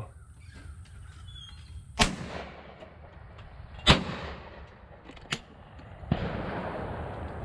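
An SKB over-under shotgun fires two shots at sporting clays targets, about two seconds apart, each crack trailing off in an echo. The second shot is the louder. A fainter sharp crack follows about a second and a half later.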